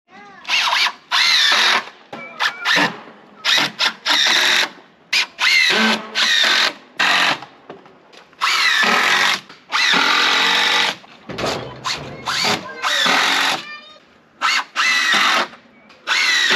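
Cordless drill driving screws into wooden framing, in repeated short runs of half a second to a second and a half, the motor pitch rising and dipping as the trigger is squeezed and the screw bites.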